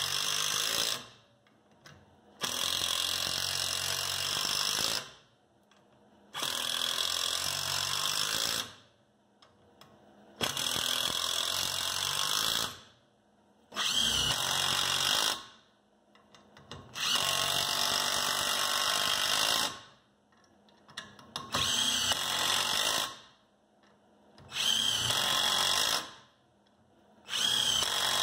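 Hercules cordless impact drivers, first the 12V and then the 20V, driving 3-inch deck screws into a softwood beam one after another. There are about nine runs of two to three seconds each with short pauses between them, and the later runs with the 20V driver are noticeably shorter.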